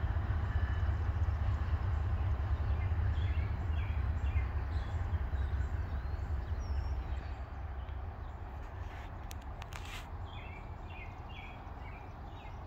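Low rumble of a departing freight train fading away, with small birds chirping more clearly over the last few seconds.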